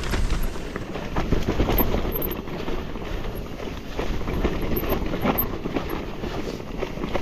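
Electric mountain bike being ridden over a rough, rocky trail: tyres rumbling over the ground and the bike rattling with a rapid, irregular clatter of knocks and clicks.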